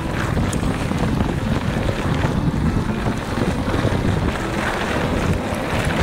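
Wind buffeting the microphone and the steady rumble and rattle of a mountain bike's tyres rolling over a dirt trail at speed.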